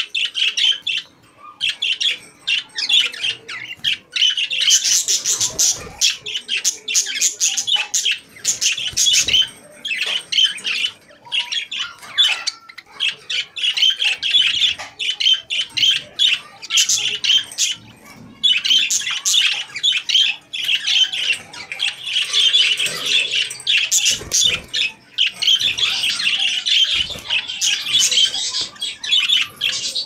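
Caged budgerigars chattering and warbling, a fast, dense stream of high chirps with only a few short breaks.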